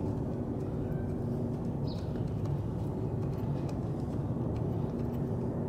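Steady low mechanical rumble with a faint hum, like a motor or vehicle running nearby, with a few faint light clicks from the starter motor's parts being handled.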